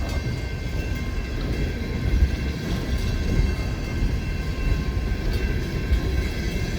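Empty coal hopper cars of a long freight train rolling past, a steady rumble of wheels on the rails.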